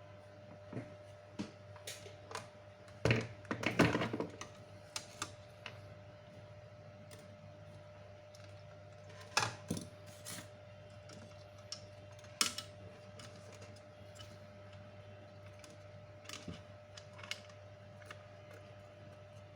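Irregular clicks and knocks, the loudest a quick cluster about three seconds in and others near the middle and later, over a faint steady hum.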